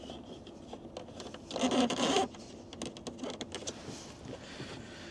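Hands working plastic car interior trim and wiring, with a scratchy rub and scrape of plastic about two seconds in and faint small clicks around it.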